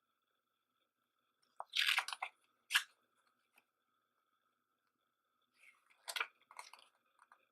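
A plastic CD case and its paper inserts handled by hand: short crinkling, rustling bursts and a sharp plastic click, in two clusters separated by a pause, over a faint steady whine.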